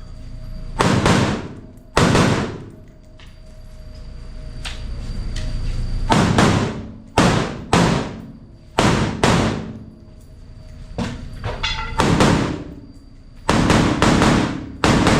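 Rifle shots from an AR-15 in 5.56 fired in an indoor range, about a dozen at an uneven pace, several as quick pairs about half a second apart, each ringing out in a long echo.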